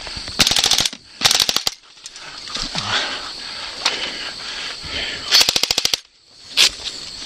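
Airsoft rifle firing three short full-auto bursts of rapid clicking shots, the last about five seconds in, followed by a single sharp crack near the end.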